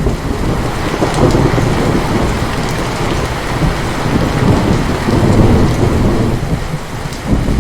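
Heavy rain pouring steadily, with thunder: a clap breaks in just as it starts and rolls on in low rumbling swells, surging again near the end.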